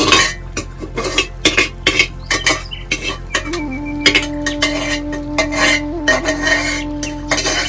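Utensils clinking and knocking against dishes or pots, irregular sharp strikes several times a second, over soft background music with a long held melody note.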